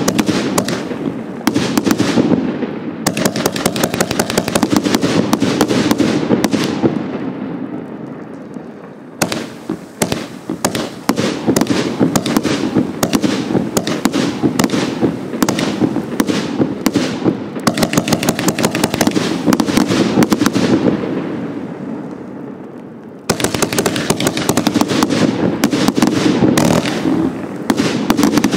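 Hallmark 'Tiger King' 100-shot compound firework cake firing: a dense, rapid stream of shots and cracks. It eases off twice, about a third of the way through and again about three-quarters through, and each time the next section starts abruptly.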